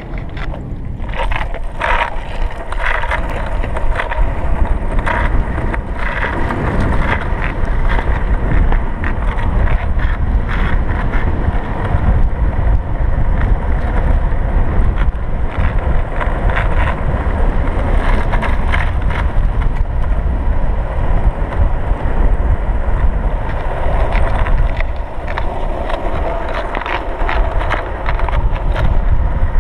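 Heavy wind rushing over the action camera's microphone and the rumble of longboard wheels rolling fast on asphalt, with frequent sharp clicks.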